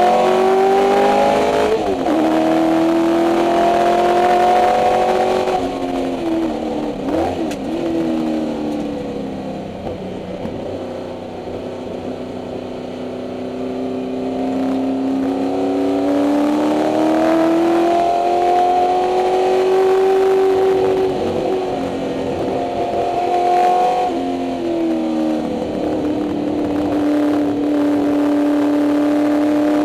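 A 1964 Ford Mustang race car's 289 Windsor V8 heard from inside the cabin, pulling hard with its pitch climbing and dropping sharply at upshifts. About six seconds in the revs fall away with a couple of quick blips as it slows, run lower and quieter for several seconds, then climb again with another upshift near the end.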